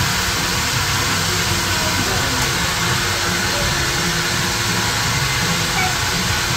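Self-serve car wash bay equipment running: a steady hiss over a low hum, unchanged throughout.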